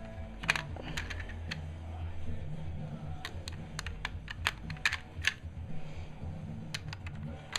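Lego bricks clicking as small brick-built shotgun shells are handled and slid into a Lego pump-action shotgun model: a dozen or so light, irregular plastic clicks.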